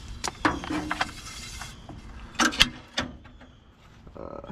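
Clicks, clunks and knocks of equipment being handled and connected, with a steady hiss over the first second and a half.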